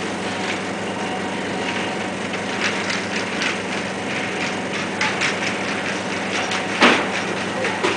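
Supermarket background noise: a steady electrical hum under irregular rattling and clattering, with one louder sharp clack near the end.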